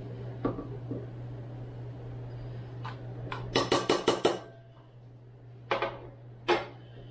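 Metal spoon clinking and scraping against a measuring cup while brown sugar is levelled off, with a quick run of sharp clinks about three and a half seconds in and a few single clicks around it, over a low steady hum.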